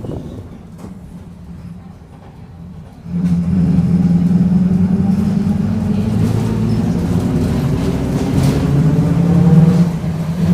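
Mercedes-Benz OF-1722M city bus heard from inside, driving under load. About three seconds in, the drone suddenly gets much louder and then climbs slowly in pitch. Near the end it dips briefly and picks up again. The low growl is from a bus whose differential the owner says is growling.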